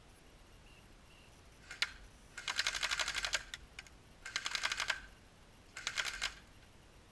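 Airsoft gun firing: a single shot, then three rapid full-auto bursts of sharp ticks, about a second, under a second and half a second long.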